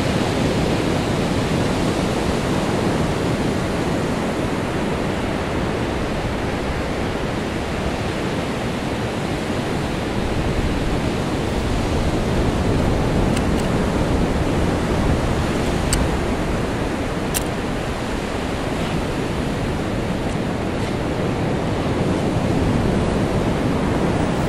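Ocean surf breaking on a sandy beach: a steady rush of waves that swells and eases slowly, with a few faint clicks in the second half.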